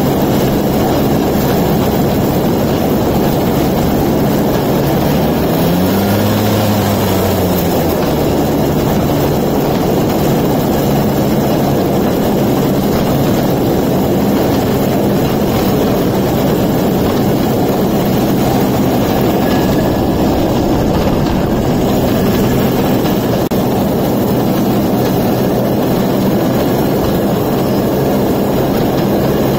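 Suzuki 125cc two-stroke engine of a homemade rail cart running at speed under a steady rushing noise; its pitch rises and falls once about six seconds in.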